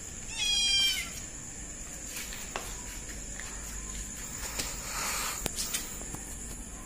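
A kitten meowing once, a short high-pitched meow that falls slightly in pitch about half a second in.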